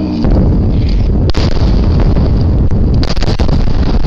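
Explosive demolition charges going off on a steel truss bridge pier. A loud, rumbling blast begins a quarter second in, with a sharp crack about a second and a half in and a rapid cluster of cracks near the end.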